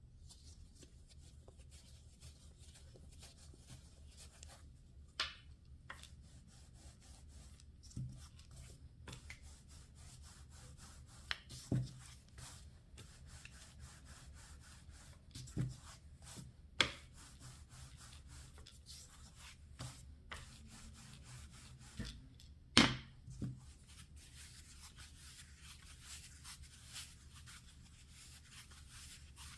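Kitchen handling sounds: soft rubbing with about ten sharp knocks and taps on a work surface, the loudest a little past two-thirds in, over a low steady hum.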